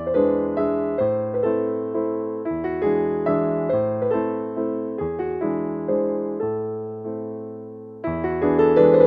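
Background piano music: gentle notes struck one after another, a held note fading away for a second or so before the playing picks up again near the end.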